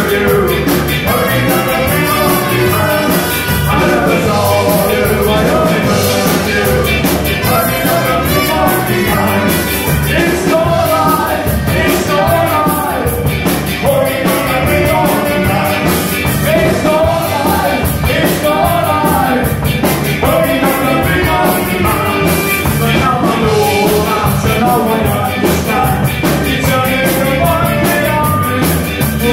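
Live ska band playing: a man singing lead over drums, with a tenor saxophone playing.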